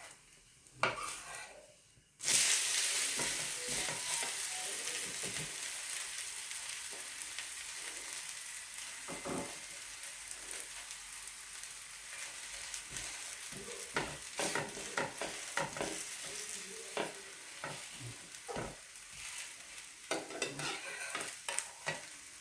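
Chakli pitha batter sizzling in a hot oil-brushed kadai: a sudden loud sizzle starts about two seconds in as the batter hits the pan, then keeps on steadily and slowly fades, with light taps and scrapes of a kitchen utensil.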